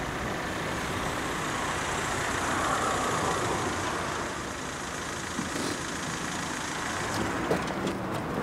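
Street traffic noise: a car driving by with a steady rush of engine and tyre noise, swelling slightly about three seconds in.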